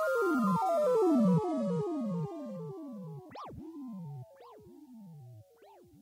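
Synthesizer music: a run of quick falling pitch sweeps that slows down and fades out.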